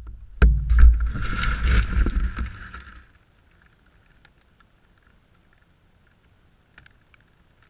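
DJI Phantom quadcopter coming down into long grass: a rough burst of thumps and rustling as it strikes and its propellers thrash the grass, stopping abruptly about three seconds in. After that, near silence with a few faint ticks.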